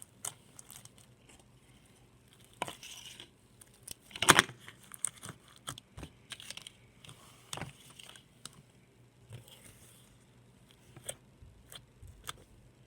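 Slime being squished and stretched by hand, giving irregular sticky pops, clicks and crackles, the loudest about four seconds in.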